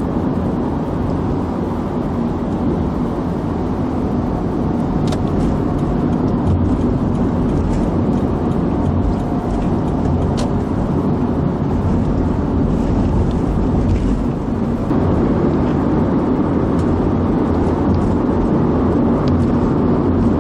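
Steady road noise of a car driving: a low rumble of tyres and engine, with a few faint ticks.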